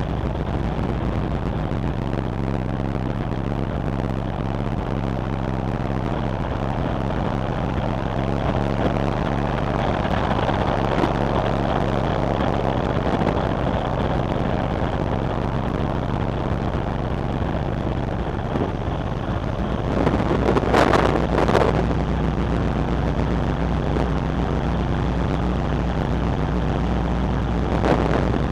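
Steady low drone of a large car ferry's engines and deck machinery, heard on the open top deck, with wind noise throughout. Louder wind gusts buffet the microphone about 20 seconds in and again near the end.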